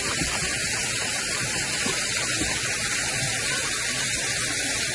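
Waterfall at very low flow: a thin stream of water splashing down rock with a steady hiss, the falls reduced to a trickle by low water.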